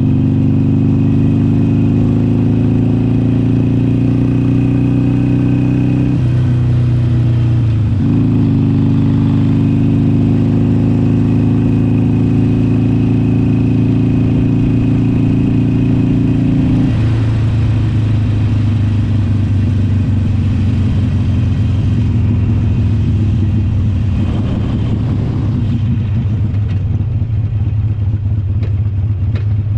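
Harley-Davidson Iron 883's air-cooled V-twin running under way. The engine note is steady, steps down about six seconds in, dips briefly near eight seconds, then drops to a lower, steady note a little past halfway.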